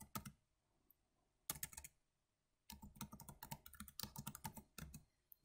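Faint typing on a computer keyboard: a few keystrokes, a pause, another short cluster, then a quick run of keystrokes lasting about two seconds.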